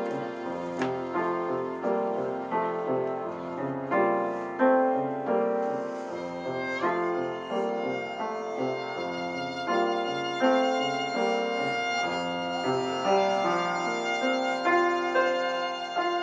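Piano and violin playing together: struck piano notes under a held violin melody.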